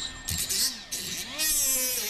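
Small cordless grinder with a small abrasive disc, triggered in a few short bursts and then run steadily against a steel bracket in a vise, grinding metal; its motor whine bends and drops in pitch as the disc is pressed into the work.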